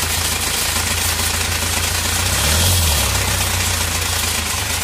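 Hyundai Porter's four-cylinder turbo-diesel engine idling with a steady rumble and hiss, swelling briefly about halfway through. The mechanic points to this noise as a sign of the turbocharger, which he finds damaged.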